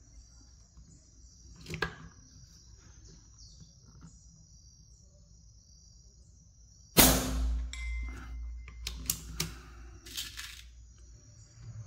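Artemis M30 Hellcat 5.5 mm air rifle fires once about seven seconds in: a sharp crack with a low thump. A brief high ring follows, likely the pellet striking the steel plinking target at 100 m. Then a run of metallic clicks as the rifle's action is worked.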